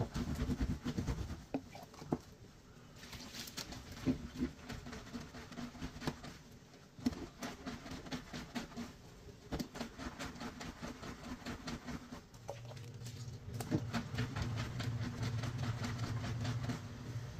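Soapy wet clothes scrubbed by hand on a ribbed washboard: irregular rubbing and squishing with many small clicks. A steady low hum comes in about three-quarters of the way through.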